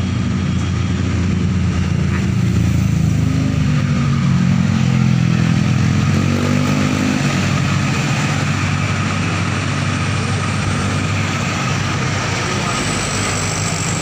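Tour bus telolet horn playing its multi-note melody, the notes changing every so often, over the bus engine running.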